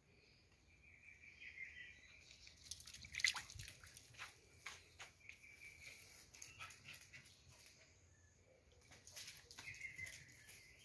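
Faint quick footfalls and clicks on brick paving as a small dog runs, loudest about three seconds in and again near the end, over faint high chirping.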